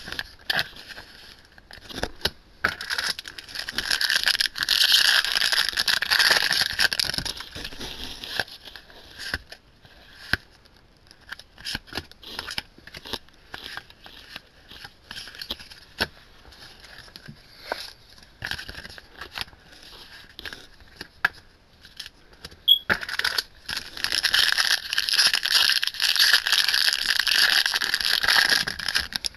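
Foil booster pack wrappers crinkling and tearing open in two long stretches, one near the start and one near the end. Between them come the clicks and light snaps of trading cards being flipped through and laid down.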